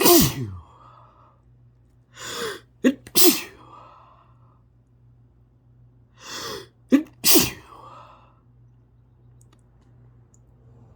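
A sneezing fit: three sneezes about three to four seconds apart, the second and third each led by a quick drawn-in breath.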